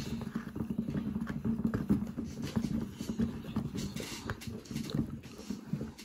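Handmade toy washing machine washing a small towel: a steady low motor hum under irregular rattling and sloshing as the plastic-cup drum turns with water and the towel inside. It gets a little quieter at the very end.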